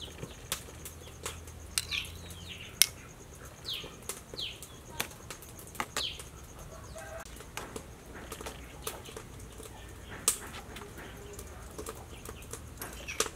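A metal spoon tapping and scraping a steel pan in scattered light clicks while spreading egg yolk, with a few short high falling bird chirps in the background.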